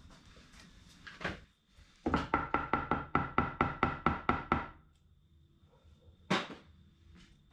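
Hammer driving a pin into a stack of plywood panels: a fast run of about a dozen ringing blows, some five a second, lasting nearly three seconds. There is a single knock about a second in and one more blow near the end. The pins are only driven partway, to hold the panels together.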